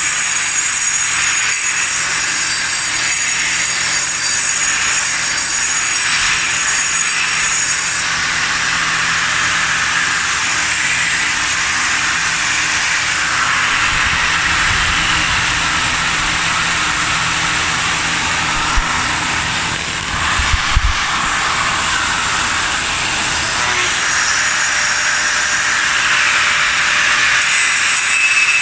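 A grinder running steadily against concrete: a continuous hissing grind with a high whine, and a few low knocks in the middle.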